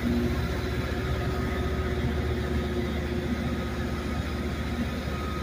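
Steady low diesel-engine rumble of the departing rail grinding train with a faint hum, slowly fading as it moves away.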